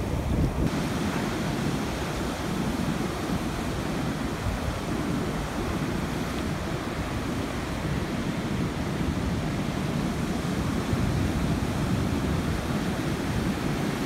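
Surf breaking on a rocky shore, a steady rush of waves, with wind buffeting the microphone.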